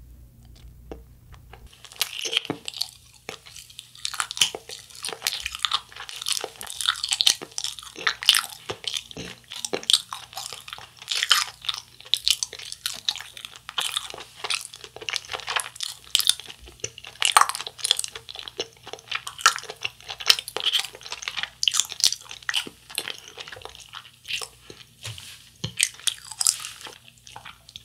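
A person chewing a soft, fruit-shaped Japanese wagashi sweet close to the microphone. From about two seconds in there is a dense, steady run of quick mouth clicks and smacks.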